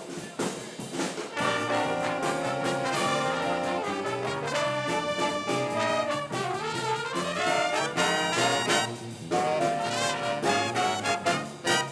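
Band music from a live performance: brass instruments playing a busy melody over a steady beat of percussive hits.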